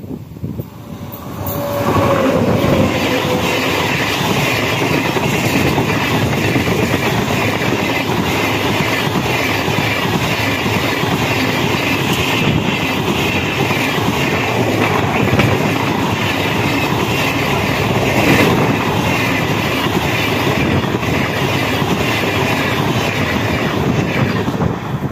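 Express passenger train hauled by a WAP-7 electric locomotive passing at speed without stopping, its coach wheels clattering rhythmically over the rail joints. A tone falls in pitch near the start as the locomotive goes by, and the rush of the coaches then stays loud and steady.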